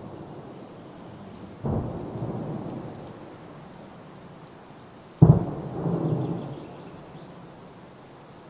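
Two distant booms, each a sudden crack followed by a rolling rumble of about a second. The second, about five seconds in, is louder than the first.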